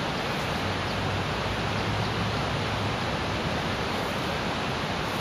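Steady, even rushing noise outdoors, with no separate sounds standing out.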